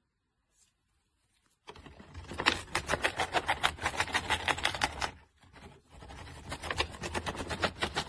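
A peach-faced lovebird biting and tearing a brown paper bag with its beak: rapid, crisp paper crunching that starts about two seconds in, pauses briefly around five seconds, then resumes.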